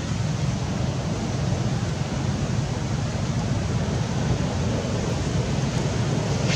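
Steady rushing noise with a heavy low rumble, unchanging throughout.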